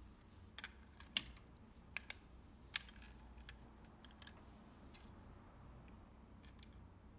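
Scattered small clicks and taps as a model pickup truck is handled and taken apart, with a front wheel pulled off its axle. The loudest click comes about a second in.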